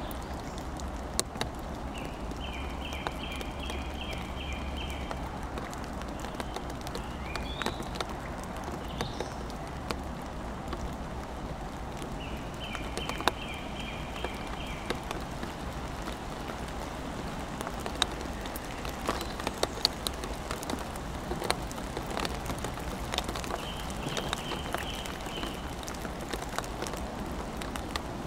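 Steady rain in woodland, with scattered raindrops ticking sharply. A bird sings a short, evenly pulsed phrase three times, about two, twelve and twenty-four seconds in, over a low rumble.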